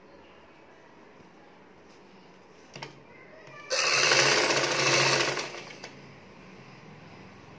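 Vidya sewing machine running a short burst of stitching, about two seconds long, starting a little past halfway through, with a rapid clatter over a steady low hum, then slowing to a stop.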